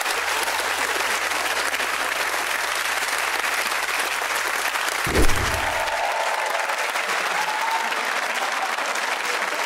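Studio audience applauding, with a brief low thump about five seconds in.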